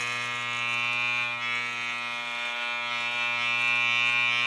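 Electric hair clippers running with a steady buzz as they cut short hair at the side of the head.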